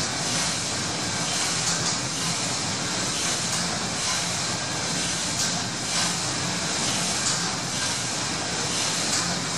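The paddle steamer Gallia's steam engine running steadily below full speed: an even hiss with a low hum and the running noise of the moving cranks and rods.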